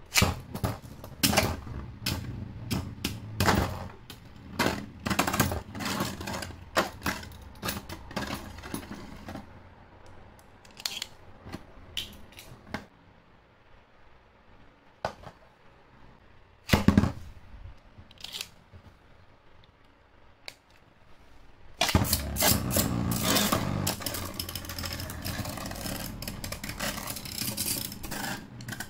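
Beyblade spinning tops and their plastic parts clicking and knocking in a clear plastic stadium: many sharp clacks through the first half and one loud knock a little past the middle. About 22 seconds in, a steady rattling sets in as a freshly launched top spins and scrapes on the stadium floor.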